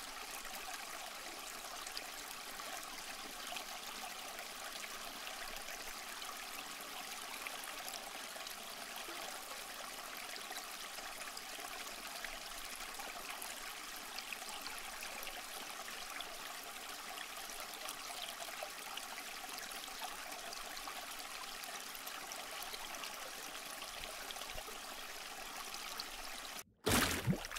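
Steady trickling, running water with little bass. Near the end it cuts off abruptly and a louder rush of noise breaks in.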